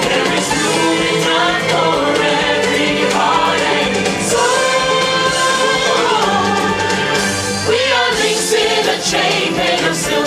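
Loud show music with a group singing over a full backing track.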